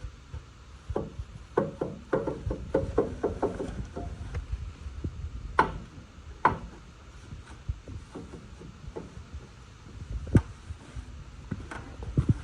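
Knocks and taps on wood as a stain paddle is worked along deck railing spindles and rails: a quick run of small taps in the first few seconds, then scattered single knocks, the sharpest near the end.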